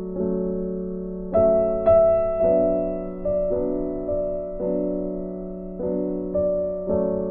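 Background music: slow piano chords, a new chord struck every half second to a second and left to fade.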